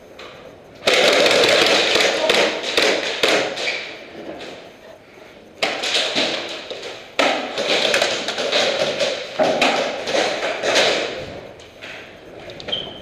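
Airsoft guns firing in semi-auto, quick strings of sharp pops and taps in loud clusters that start suddenly about a second in and again twice midway.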